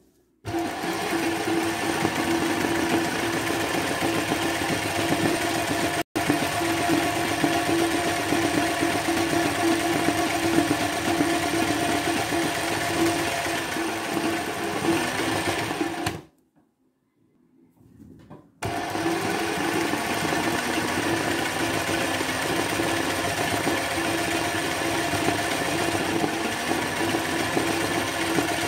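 Sewing machine running steadily at speed, its needle stitching free-motion satin-stitch embroidery as the fabric is guided by hand. It stops for about two seconds a little past the middle, then starts again and runs on.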